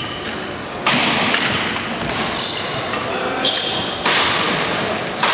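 Badminton play in a large indoor hall: sharp racquet hits on the shuttlecock, one about a second in and another about four seconds in, with high shoe squeaks on the court floor and the hall's echo.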